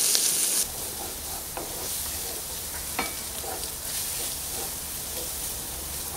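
Fried rice sizzling in a non-stick frying pan while a wooden spatula stirs and scrapes through it, with a few light knocks of the spatula on the pan. The sizzling is louder for the first half second or so, then drops.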